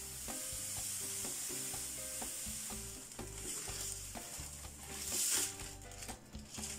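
Granulated sugar pouring from a plastic bag into a pot of berries, a steady grainy hiss. About three seconds in it gives way to crinkling of the plastic bag in two louder bursts as the empty bag is shaken out.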